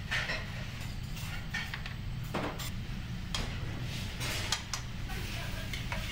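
Restaurant kitchen at work: a steel sauté pan and metal utensils clattering on a gas range, with scattered sharp clinks over a steady low rumble.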